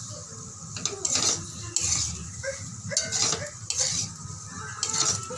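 Metal spoon stirring and scraping pasta against a metal wok, in short strokes about once a second.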